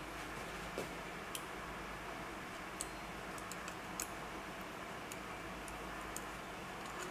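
Scattered light clicks and taps, about ten at irregular intervals, as a circuit board and its small screws are handled against a metal mounting panel, over a steady faint hiss.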